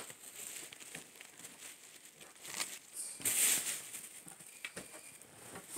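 Gift packaging being handled: scattered rustling and crinkling with a few small clicks, and a louder rustle a little past halfway.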